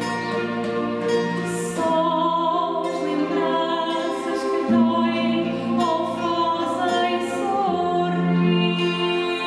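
A woman singing a fado with vibrato on her held notes, accompanied by violins and classical guitars.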